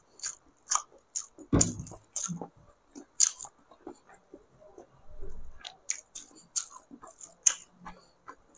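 Close-miked eating: chewing and wet mouth smacks of rice and egg curry eaten by hand, heard as an irregular run of short, sharp clicks, a few a second.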